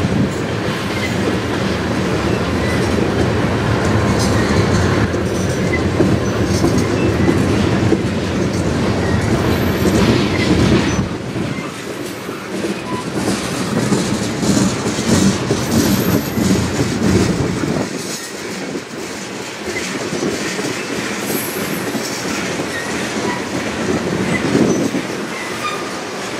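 Tank cars of a slow-moving freight train rolling past, steel wheels on the rails, with short high squeals here and there. The low rumble eases about eleven seconds in and again near eighteen seconds.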